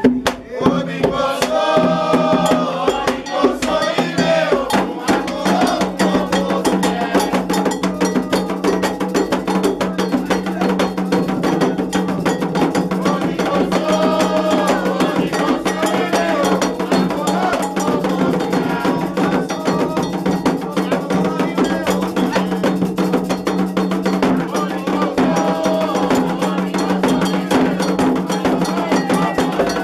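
Candomblé ritual music starts suddenly: an agogô iron bell and atabaque hand drums play a steady rhythm. Voices sing a chant over it that comes and goes.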